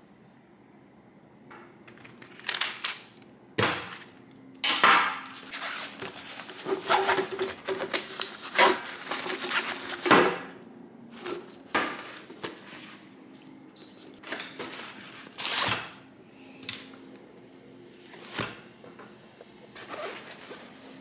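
Close handling noise: an action camera in a hard plastic waterproof housing being handled and set down, with fabric rustling over it and a string of irregular taps and knocks. Near the end a backpack zipper is being worked.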